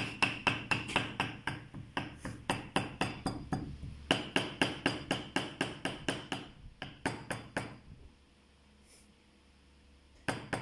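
Cleaver chopping raw beef into mince on a thick round wooden chopping block: a steady run of knocks about four a second. The chopping stops for about two seconds near the end, then starts again.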